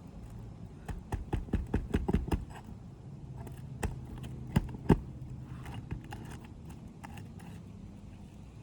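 Sharp knocks of hand roofing tools working the asphalt shingles: a quick run of about ten strikes in the first couple of seconds, then three single knocks near the middle, over a low steady hum.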